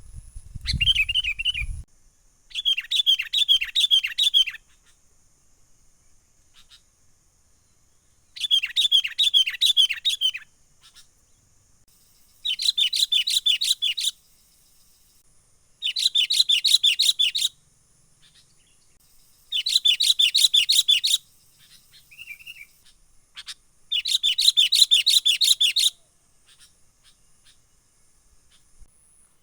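Sooty-headed bulbul (kutilang) calling in about seven bursts of rapid chattering notes, each a second or two long, with short pauses between. These are excited calls of the kind used as a lure.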